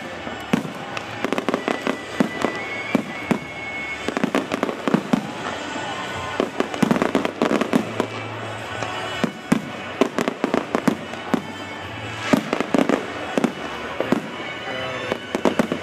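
Fireworks show: aerial shells bursting in an irregular run of many bangs and crackles, thickest in the middle and near the end.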